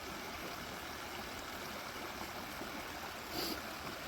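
Steady rush of a flowing stream. A brief louder noise comes near the end.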